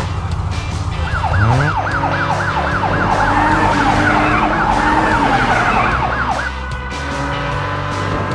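Emergency vehicle siren yelping rapidly up and down, about four swings a second, starting about a second in and stopping shortly after six seconds, as an engine revs up when it begins.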